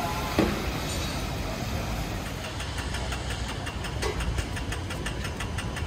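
City street traffic: a steady low rumble of vehicles, with one brief loud knock just under half a second in and a rapid, even ticking that starts about halfway through.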